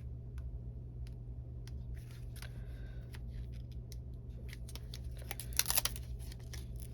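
Scattered light clicks and taps of card-making supplies handled on a craft desk, then a quick run of sharp crackling clicks about five and a half seconds in, over a steady low hum.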